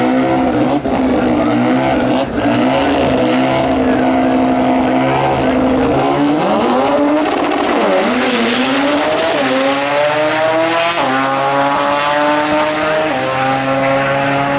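Drag-racing car engine held at steady high revs, then accelerating hard about six seconds in. Its pitch climbs and drops back at each upshift.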